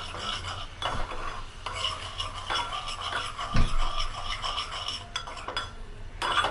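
A spoon stirring and scraping in a small pan of boiling lemon-juice and sugar syrup, with irregular clinks against the pan and one heavier knock about halfway through.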